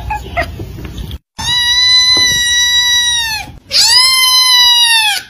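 Ginger kitten meowing loudly: two long, drawn-out high meows, the second rising and then falling in pitch, after a shorter, fainter stretch that breaks off briefly about a second in.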